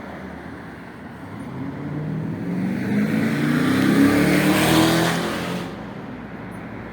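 A car passing close by, its engine note rising as it speeds up. The sound swells to its loudest about four to five seconds in, then drops away quickly.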